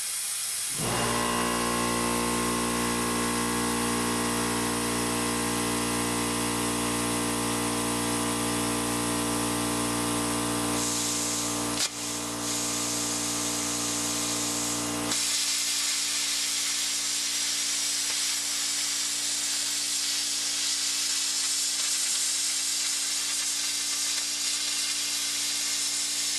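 A machine starts about a second in and runs with a steady hum of several tones over a constant hiss. Most of the hum stops about fifteen seconds in, while the hiss and a couple of tones carry on.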